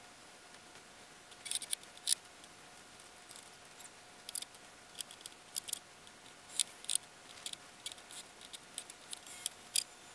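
Hand tools and cordless drills being handled and set down on a pickup's tailgate and plastic bed liner: irregular sharp clicks and clacks, a few at a time, with short pauses between.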